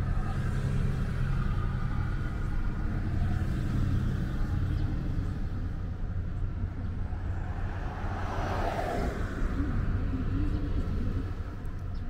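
Steady low rumble of a car's engine and tyres heard from inside the cabin as it rolls slowly along. About eight seconds in, a louder hiss swells and fades over a second or so.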